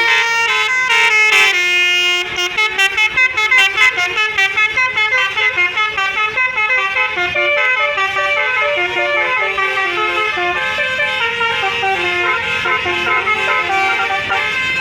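Bus telolet basuri multi-trumpet musical horn playing a melody. It opens with a held chord, breaks into quick staccato notes about two seconds in, then runs through a string of stepping notes.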